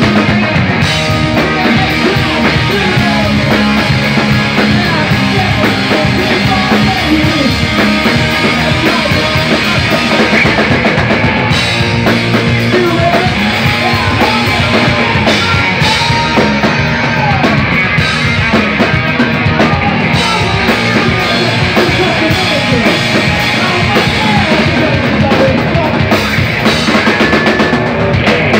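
Live rock band playing loud, with electric guitar over a steadily pounding drum kit.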